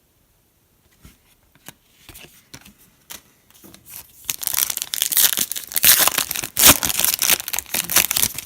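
Wrapper of a trading-card pack being torn open and crinkled by hand: a few light clicks and rustles, then a dense run of crackling from about halfway through.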